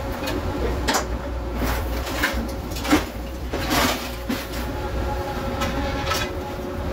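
Fishing boat's engine running with a steady low drone while a baited halibut longline is set from a tub over the stern. Irregular sharp clacks and rattles come from the gear, about eight of them.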